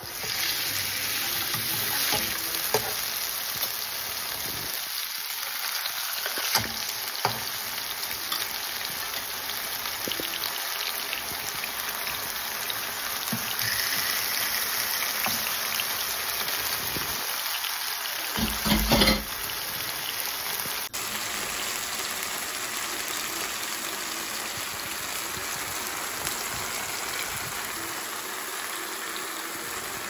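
Haddock fillets frying in oil in a nonstick pan: a steady sizzle with a few sharp crackles, and a brief low knock about two-thirds of the way through.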